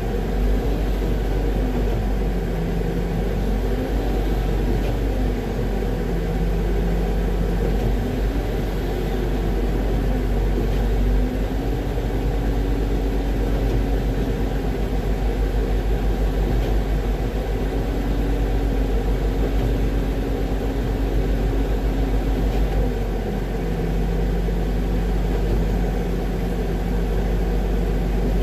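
Concrete mixer truck's diesel engine revving up and down several times, then held at higher revs for about ten seconds and dropping back to a lower idle near the end. The truck is being given gas to turn the drum faster and push more concrete out into the line pump's hopper, which is running low.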